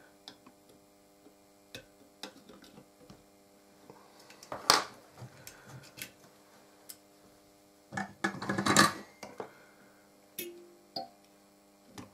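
Small clicks and handling knocks from a circuit board and a metal drill bit being adjusted in a board holder, with two louder rattles about halfway and two-thirds of the way through. A faint steady hum lies underneath.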